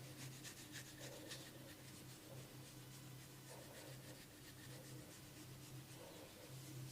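Faint scratching and rubbing of a massage on skin and hair, in short irregular strokes that are busiest in the first second or so, over a low steady hum.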